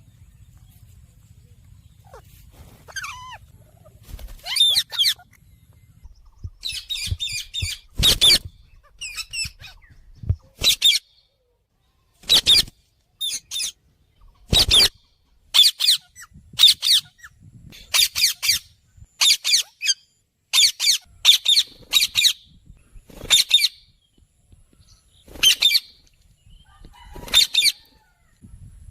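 Parrots calling: a long run of short, harsh calls, about one a second, with a few coming in quick pairs. The calls start sparse and faint and grow loud from about four seconds in.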